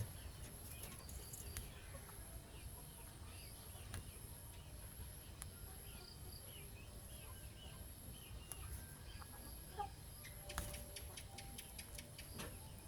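Faint bird calls, short chirps scattered throughout, over a low rumble, with a quick run of clicks near the end.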